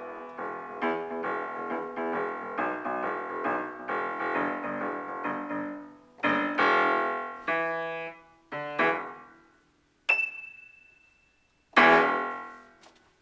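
Piano improvisation: a busy stream of notes and chords, then a few separate chords with gaps between them, a single thin high tone held for about a second and a half, and a last loud chord that rings away.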